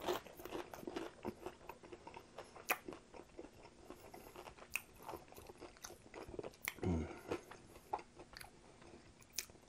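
Close-up chewing of a crispy, buttermilk-dredged fried chicken tender, with mouth-closed chewing and irregular small crunches and clicks as the fried crust breaks down.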